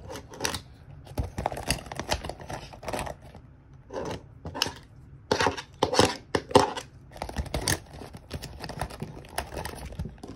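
Clear plastic pencil pouch crinkling and rustling as pens are pushed into it, with irregular clicks and taps of plastic pens knocking together; the loudest handling comes in the middle.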